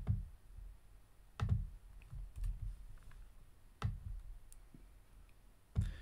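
Computer mouse buttons clicking: four sharp clicks spread a second or two apart, with a few fainter ticks between them.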